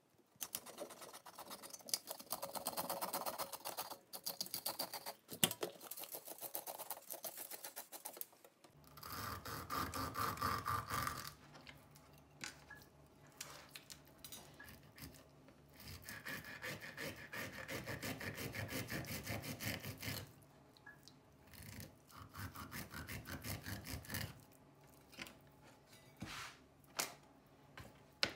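Quick, repeated scraping strokes as whole horse mackerel are cleaned and scaled with a knife on a wooden cutting board. The scraping comes in several spells of a few seconds each, with short pauses between them.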